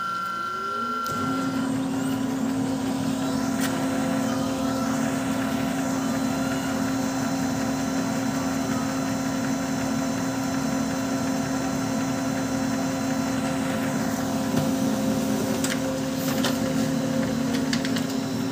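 Brother DCP-L2540DW laser multifunction printer making a copy. Its motors spin up with a rising whine about a second in, run with a steady hum and a few clicks, then wind down with a falling tone near the end as the sheet is fed out.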